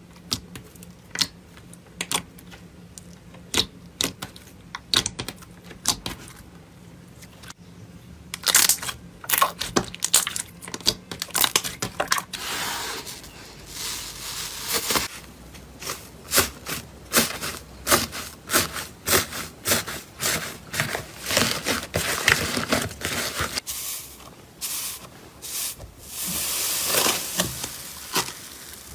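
Slime being squished and poked by hand, giving irregular sharp clicks and pops, with stretches of denser crackling.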